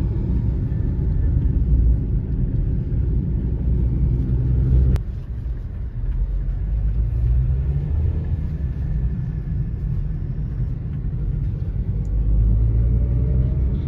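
Steady low rumble of a car's engine and tyres heard from inside the cabin while driving. A faint click comes about five seconds in, after which it is slightly quieter.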